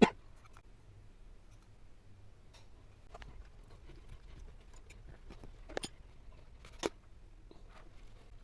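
A few sharp clicks and knocks of small parts and tools being handled while a hand vacuum cleaner is taken apart: one right at the start, then two more about a second apart near the end.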